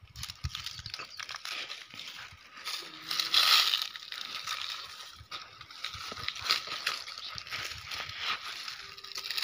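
Dry crop stubble and straw crackling and crunching underfoot: irregular footsteps through the dry field, loudest about three to four seconds in.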